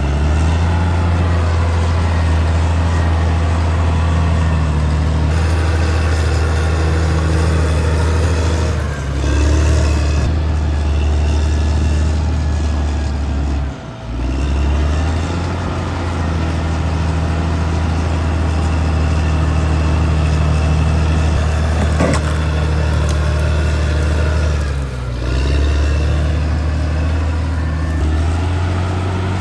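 Caterpillar D6R XL bulldozer's diesel engine running steadily as it works, a loud low drone that dips briefly three times as the load or throttle changes.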